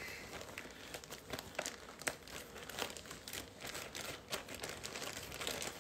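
Plastic zip-top bag crinkling and crackling irregularly as fingers squeeze and push deviled-egg filling down into one bottom corner, readying it as a piping bag.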